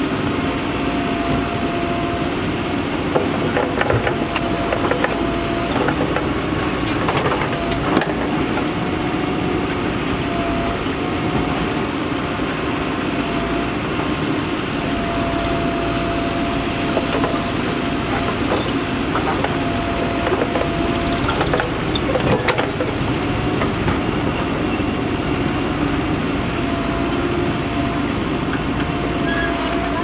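Mahindra Earthmaster SX90 backhoe loader's diesel engine running under load as the backhoe arm digs and swings, with a steady high whine that breaks off and returns many times and a few clanks.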